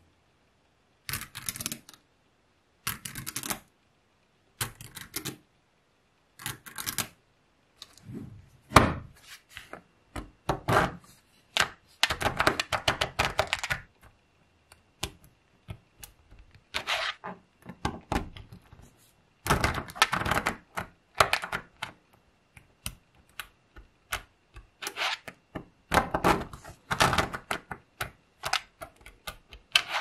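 Dozens of small magnetic balls clicking and rattling as fingers push, pull apart and reshape a block of them, with a plastic card pressed between the rows to split off layers. The clicks come in short bursts of rapid ticks with silent gaps between them.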